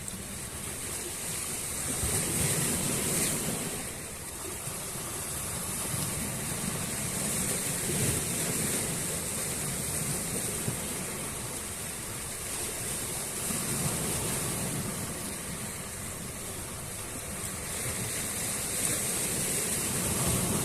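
Sea waves breaking on a shore, a steady wash that swells and eases about every five to six seconds.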